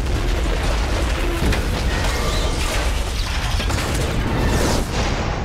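Film-trailer explosion and destruction effects: a loud, dense rumble with several booming impacts, mixed with music.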